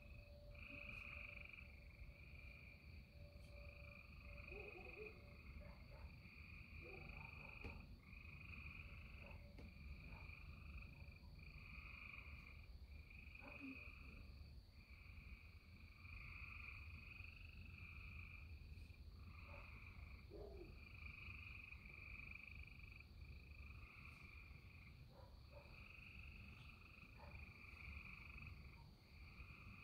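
Faint chorus of frogs calling, many voices overlapping in trilling clumps of about a second each, over a steady low rumble.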